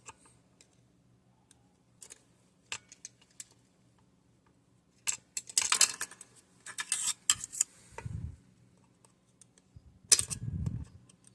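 Small metal tool clicks and scrapes as a pick probes inside the 196cc engine, trying to hook out a leftover oily governor washer. The clicks come singly at first, then in two busier bursts of rattling and scraping with a couple of dull knocks, in the middle and near the end.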